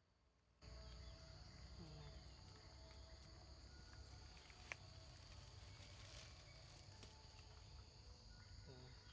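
Faint outdoor background of insects droning steadily on one high pitch, over a low rumble. It cuts in abruptly after about half a second of silence, with one sharp click about halfway through.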